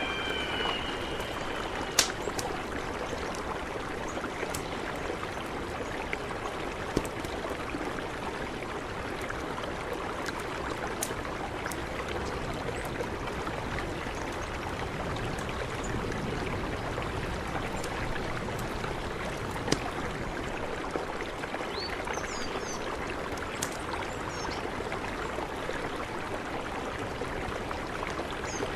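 Mountain river flowing, a steady rush of water, with a few sharp clicks and some short high chirps now and then.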